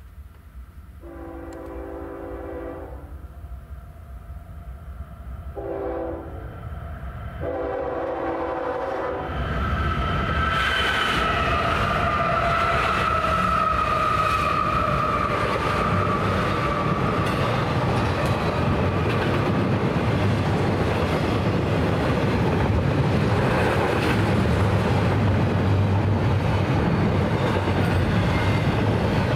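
Union Pacific freight locomotive's air horn blowing three times, then the locomotive passing loudly with its engine running and wheels rumbling, over a double-stack intermodal train's wheels clattering by close by.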